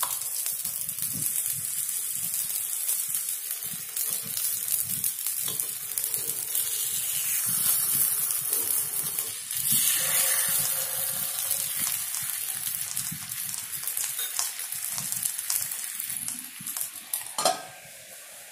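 Paniyaram batter sizzling in oil and ghee in a paniyaram pan, with a spoon clicking and scraping against the pan as the paniyarams are turned. Near the end a steel lid clanks down over the pan and the sizzle turns muffled.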